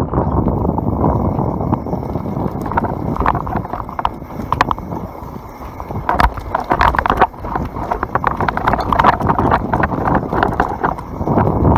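YT Capra full-suspension mountain bike riding fast down a dirt forest trail: a steady rush of tyres and moving air, with quick clattering and rattling of the bike over roots and bumps. The clattering is busiest in the second half.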